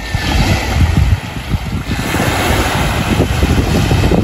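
Wind buffeting the microphone in uneven low gusts, over the hiss of small waves breaking and washing up the shore, which swells about halfway through.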